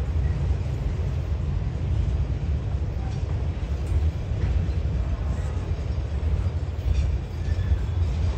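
Autorack freight cars rolling slowly past on the rails: a steady low rumble of steel wheels on track, with a few faint higher clicks and squeaks.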